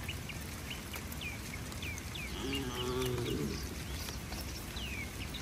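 A cow moos once about halfway through, a call of about a second that rises and falls in pitch. Short high chirps run in the background throughout.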